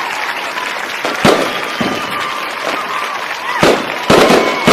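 Aerial fireworks going off: a string of sharp bangs over continuous crackling. The loudest bangs come close together near the end.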